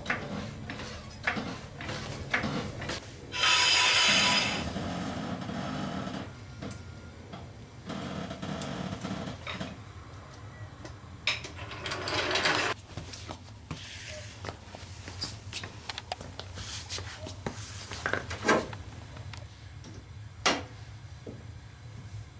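Hydraulic floor jack being worked to lower a car's front end: clicks and knocks from the jack and its long handle, with a short loud rushing noise about three and a half seconds in and a few sharp knocks near the end.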